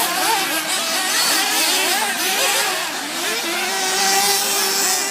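Several radio-controlled off-road racing buggies running together, their motors' pitch rising and falling over and over as they speed up and slow down around the track.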